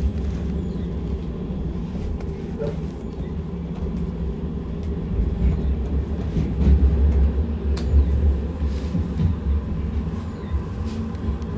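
Metrolink tram running, heard from inside the car: a steady low rumble of wheels on rail that swells louder for a couple of seconds around the middle, with a few sharp clicks.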